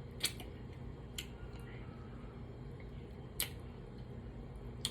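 Four short, sharp wet clicks from a mouth sucking on a hard cherry lollipop, spread over a few seconds above a low steady room hum.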